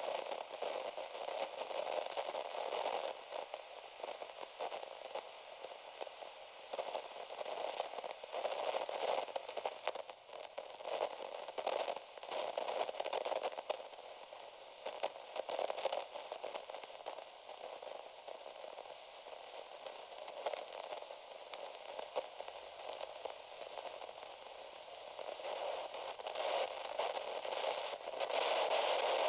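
Radio static: a continuous crackling hiss with a thin, narrow-band sound, swelling and fading every second or two.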